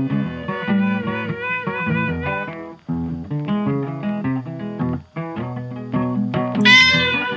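Gentle background music led by plucked acoustic guitar notes. Near the end comes a brief high sound that arches down in pitch, the loudest moment.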